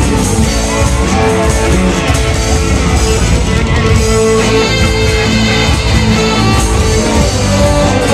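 Live rock band playing an instrumental passage, electric guitar over bass and drum kit, steady and loud.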